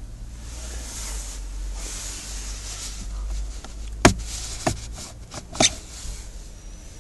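Hands working the plastic interior parts around a car's cabin air filter: rubbing and rustling, then three sharp plastic clicks a little past halfway, the first the loudest.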